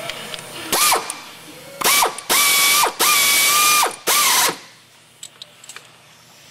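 Power ratchet run in five short bursts, each spinning up to a steady whine and winding down as it stops. It is driving in the hard-to-reach upper bellhousing bolt of a TREMEC transmission.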